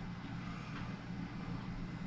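Steady low hum of forced-air HVAC equipment running in the ductwork.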